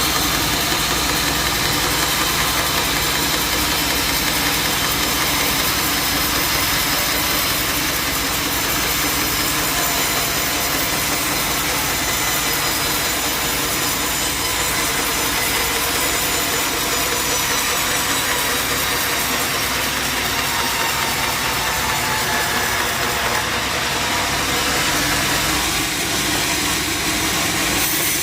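Band sawmill blade cutting through jackfruit wood, a steady sawing noise over the mill's running motor.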